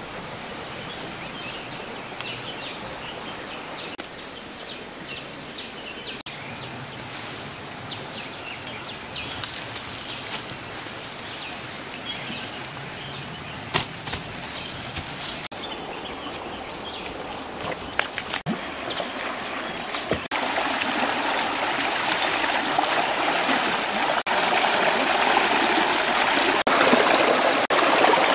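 A shallow stream running over rocks, with birds chirping and a few sharp clicks; the running water gets louder about two-thirds of the way through.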